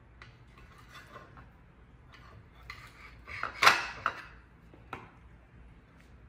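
A long slicing knife sawing through a smoked beef rib on a ceramic plate, the blade scraping and clinking against the plate, loudest about three and a half seconds in. A single sharp knock follows about five seconds in.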